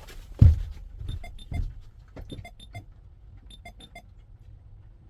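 A heavy thump about half a second in, then about ten small sharp ticks with a faint metallic ring, in three quick clusters.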